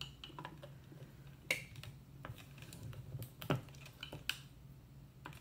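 Small clicks and taps of hands and a screwdriver working on a plastic Trimline telephone handset, with sharper clicks about one and a half and three and a half seconds in, over a faint steady low hum.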